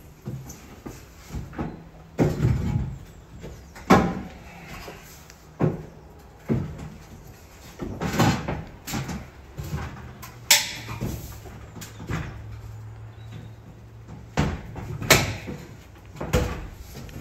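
Irregular knocks and clunks of a personnel door being lifted and set in position. A low steady hum runs for a few seconds midway.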